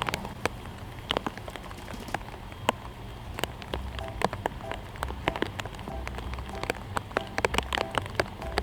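Raindrops tapping irregularly on a nearby hard surface, many sharp taps close together over a low steady rumble.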